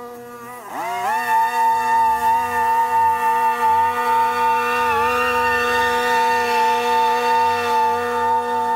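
Background music: one long held note with many overtones, likely a distorted guitar. Its pitch dips and swings back about a second in, and wavers briefly near the middle.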